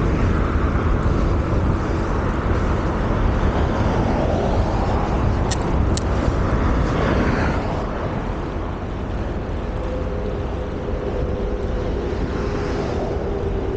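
Wind buffeting the microphone of a camera on a moving bicycle, with a heavy low rumble of air and road noise. Two short clicks come midway, and a steady hum from a passing vehicle joins about ten seconds in.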